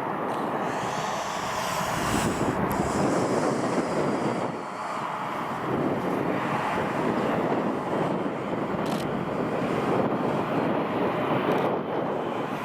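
Airbus A350's Rolls-Royce Trent XWB jet engines and airflow making a steady rush, with a few faint ticks.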